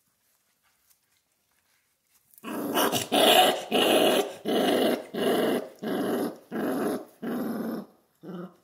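Central Asian Shepherd puppy growling, a run of about seven loud, evenly spaced growls starting a couple of seconds in, one with each breath. The puppy is guarding a raw venison neck it has taken from the others.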